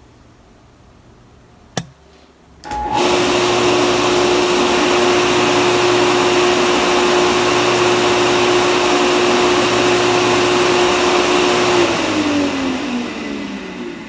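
Small electric water pump motor switched on by its float switches: a single click, then the motor starts under a second later and runs with a steady hum and the whir of its cooling fan. It runs while the roof-tank float hangs in the empty position, then cuts off near the end when the downstairs-tank float is tipped to empty, spinning down with falling pitch.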